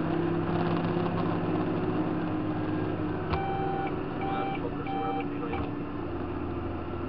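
Tractor engine running steadily while driving on the road, a constant drone over tyre noise. About three seconds in there is a click, three short electronic beeps and another click.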